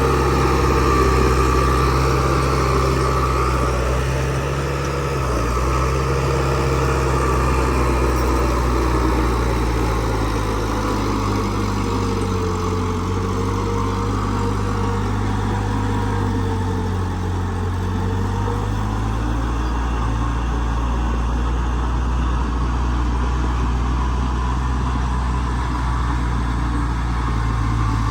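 Heavy construction machinery's diesel engine running steadily at a low pitch, its note shifting about five seconds in and again around eighteen seconds.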